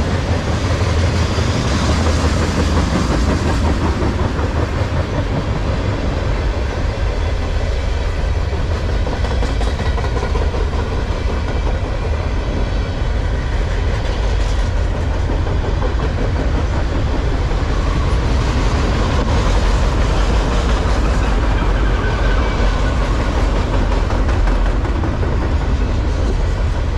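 Freight train cars rolling past at close range, tank cars and then container flatcars: steel wheels running on the rails, a loud, steady noise strongest in the deep low end.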